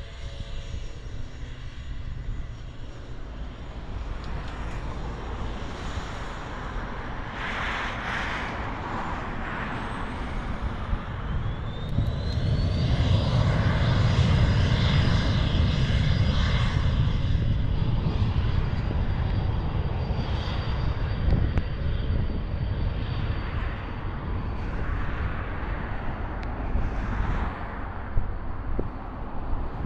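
Eclipse 500 very light jet's twin turbofan engines at takeoff power. About eleven seconds in, a high whine rises and then holds steady. The engine rumble is loudest soon after and then slowly fades.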